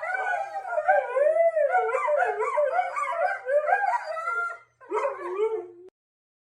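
A dog howling and whining, its pitch sliding up and down continuously. It breaks off briefly near the end, gives one more short howl, then cuts off suddenly.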